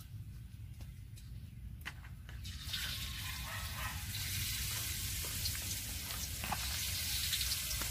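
Batter-coated potato sticks frying in hot oil in a wok, a sizzling hiss that starts about three seconds in and grows louder as more pieces go in.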